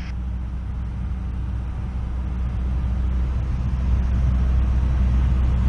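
Cessna 172's piston engine and propeller droning steadily, heard inside the cabin, growing slightly louder near the end.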